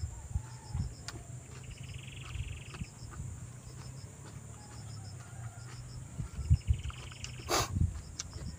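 Knocks and handling noises from eating, with one sharp crack about three-quarters of the way through. Behind them, a buzzing insect trill about a second long sounds twice, along with faint small chirps.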